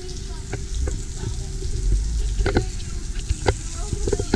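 Outdoor showers running, with water spraying onto a wet concrete floor as a steady hiss. Under it is a low rumble, and a few short knocks are heard, the sharpest near the end.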